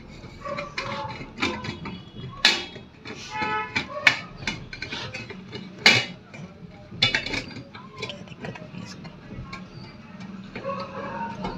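Laminating machine's metal roller and side bracket clicking and knocking as the roller is worked back into place by hand.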